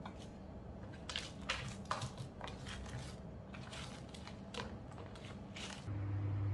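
Dry eggshells being crushed by gloved hands on an enamel tray: irregular brittle crackles and crunches. Near the end they stop, and a steady low hum starts suddenly.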